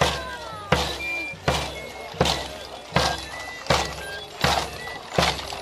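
Large double-headed bass drum beaten with a mallet in a steady processional beat, about four strokes every three seconds, with short high tones sounding between the beats.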